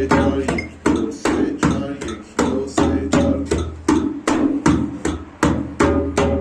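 Djembe played with the hands in a steady rhythm of about three strikes a second. Each stroke rings briefly over a deep bass boom.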